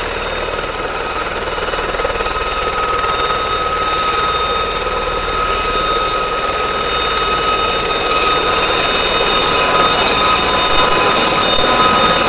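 Aérospatiale Gazelle helicopters hover-taxiing, with the steady high whine of their turboshaft engines and Fenestron shrouded tail rotors over rotor noise. The sound grows steadily louder as the lead helicopter draws close.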